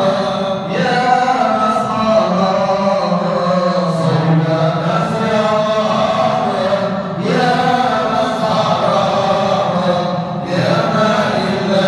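A man's voice chanting a Sufi hymn into a microphone for the whirling dervish dance, sung in long, held melodic phrases of about three to four seconds each with brief breaks between them.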